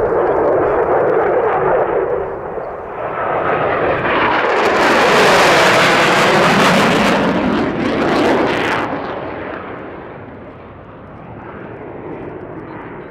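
F-15 Eagle fighter jet flying low past, its turbofan engines a loud rushing roar with a sweeping, phasing tone as it passes. The roar swells to its loudest in the middle, its hiss cuts off suddenly about nine seconds in, and the rumble then fades as the jet flies away.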